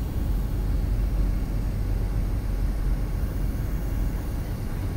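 Airliner cabin noise on final approach: the jet engines and rushing air heard from inside the cabin, a steady low rumble.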